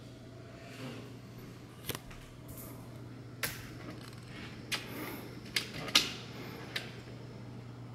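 A steady low hum with six sharp clicks or taps scattered through it, irregularly spaced, the loudest about three-quarters of the way in.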